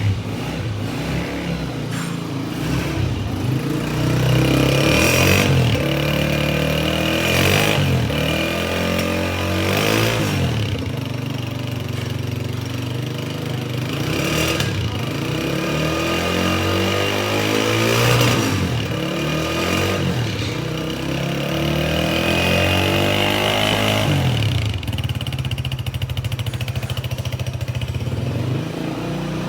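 Honda CG125's single-cylinder four-stroke engine running and being revved several times, its pitch rising and falling with each blip of the throttle, then settling to a steady idle near the end.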